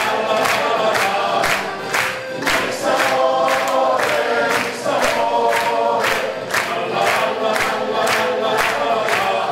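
Men's choir singing a lively song with accordion and band accompaniment, and a steady beat of hand claps, about three a second, from the singers clapping along.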